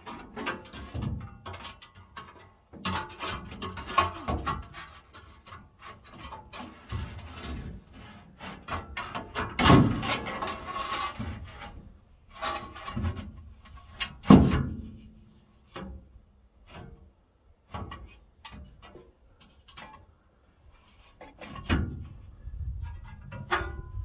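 Replacement radiator being worked down into its mounting brackets: irregular knocks, clunks and scrapes of the radiator against the brackets, with the heaviest bumps about ten and fourteen seconds in.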